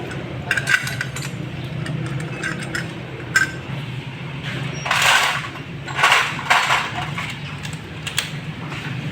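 Metal engine parts and hand tools clinking and knocking as they are handled during a motorcycle engine overhaul, with a few louder scraping bursts about halfway through, over a steady low hum.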